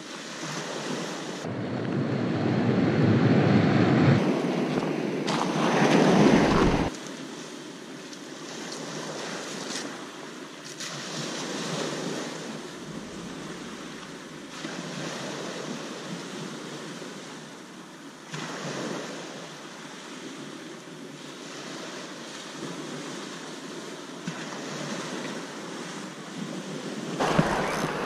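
Small waves breaking and washing up a shingle beach, the surf swelling and easing every few seconds, with wind buffeting the microphone, heaviest early on and again near the end.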